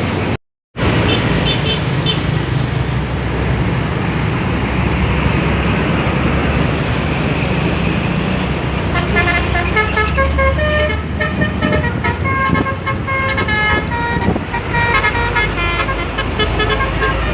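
Bus engine and road noise, then from about nine seconds in a Basuri V3 telolet horn with roof-mounted trumpets plays a quick melody of stepped notes, several tones sounding at once. The sound cuts out for a moment near the start.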